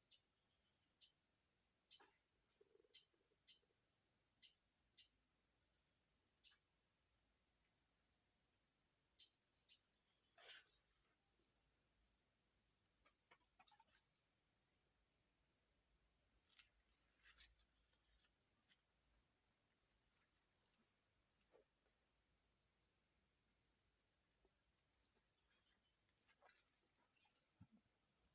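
Steady, high-pitched insect chorus of crickets, with short falling chirps scattered through it, most of them in the first third.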